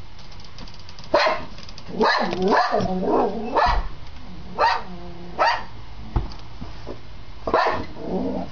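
Pet dog barking repeatedly in short, loud, unevenly spaced bursts.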